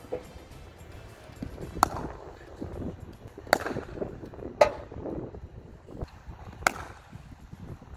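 Cricket bat striking a leather ball four times at uneven intervals, each a sharp knock with a short ring, over a low outdoor rumble.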